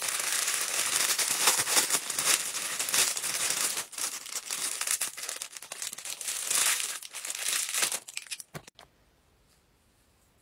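Clear plastic packaging sleeve crinkling as makeup brushes are unwrapped from it. The crinkling goes on for about eight seconds, then stops.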